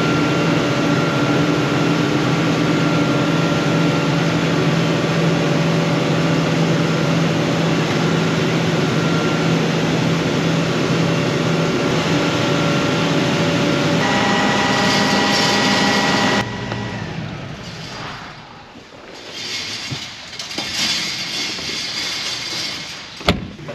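A heavy vehicle engine running steadily, then stopping abruptly about two-thirds of the way through. Quieter irregular knocks and rustles follow, with one sharp click near the end.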